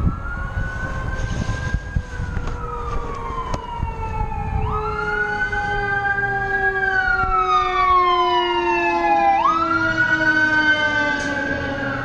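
Sirens wailing in a slow cycle. The pitch rises quickly, holds briefly, then falls slowly, starting again about every five seconds, over a low rumble.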